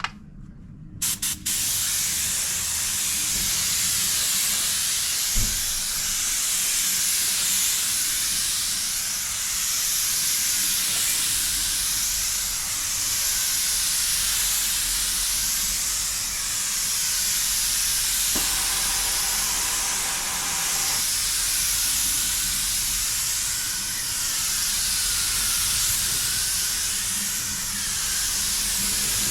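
Compressed-air paint spray gun spraying a coat on a car door panel: a couple of short bursts about a second in, then a continuous loud hiss that swells and fades slightly with each pass.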